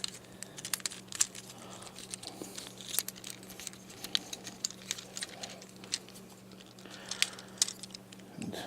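Plastic parts of a Transformers Studio Series Stinger deluxe action figure clicking and ticking as it is handled and transformed: many small irregular clicks, over a faint steady low hum.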